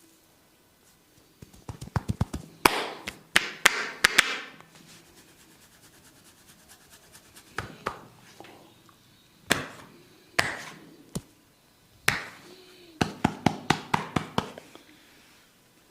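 A barber's hands striking the client in percussive massage strokes. Quick runs of tapping and chopping come near the start and near the end, with single slaps in between.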